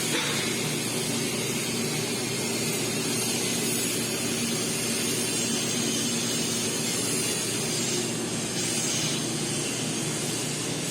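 Steady machine hum with a continuous hiss over it.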